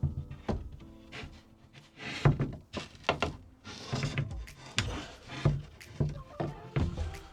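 Background music with a steady beat, low hits about twice a second.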